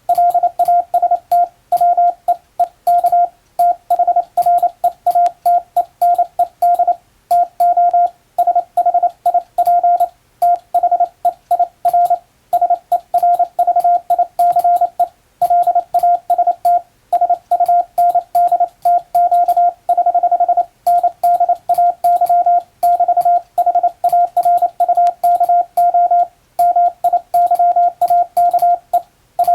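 International (English-alphabet) Morse code sent by hand on a telegraph key: one steady beep-tone of about 700 Hz keyed rapidly into dots and dashes, in groups with short pauses between them, with a thin click at each keying.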